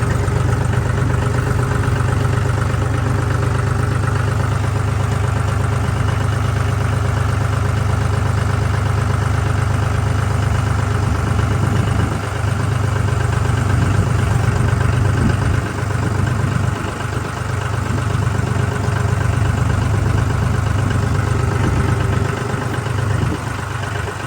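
An engine running steadily at a low, even speed, with a few brief dips in level partway through.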